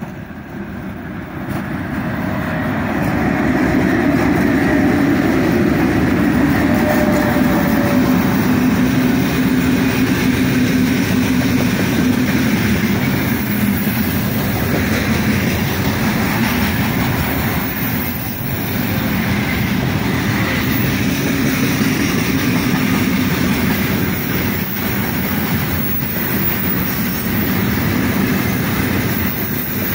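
Twin 2ES5K Ermak electric locomotives draw near and pass, growing louder over the first few seconds with a steady hum. A long mixed freight train of boxcars and gondolas then rolls by with continuous wheel-on-rail clatter.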